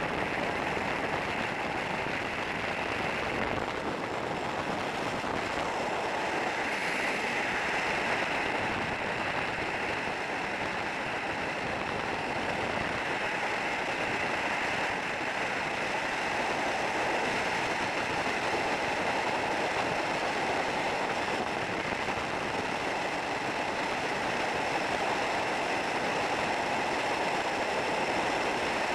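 Steady rush of freefall wind buffeting a skydiver's helmet-mounted camera, a constant roar of air noise with no break.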